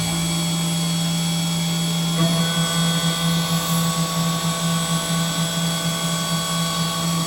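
Machine tool running with a steady low hum and several steady higher tones; a few more tones join about two seconds in.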